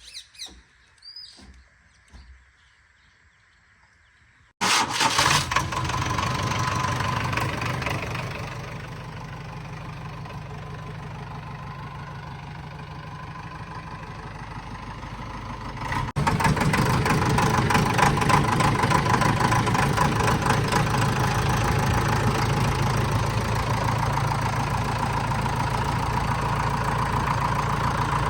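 JCB 3DX backhoe loader's diesel engine running steadily. It comes in suddenly about four and a half seconds in after a few high chirps, eases to a lower level, then runs louder again after an abrupt break a little past the middle.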